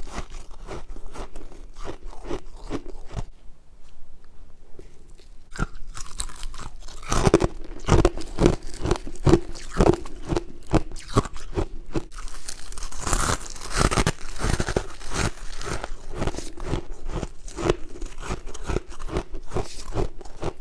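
Frost being bitten and chewed: a steady run of crisp crunches, about two to three a second, with louder, harder crunching about seven and again about thirteen seconds in.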